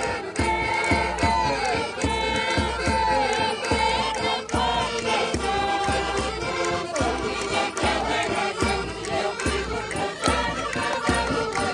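A crowd singing a folk song together, backed by an accordion, with a drum keeping a steady beat about twice a second.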